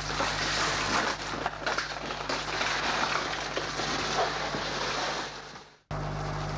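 Rustling and crackling of a latex rubber skin and thin plastic film being peeled off a body, over a steady electrical hum. The rustling fades away about five seconds in and the sound cuts out briefly, leaving the hum.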